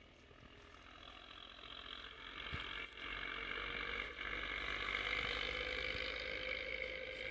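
A steady high-pitched drone of several held tones, growing gradually louder, over a faint low rumble.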